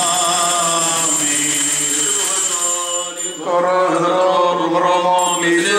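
Orthodox liturgical chant sung by male voice in long held notes that move step by step, with a short break about three seconds in.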